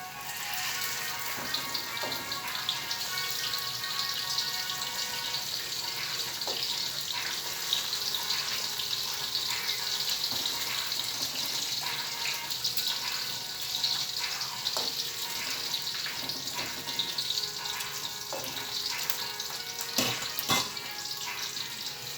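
Jackfruit pieces deep-frying in hot oil: a steady sizzle with many small crackles and pops.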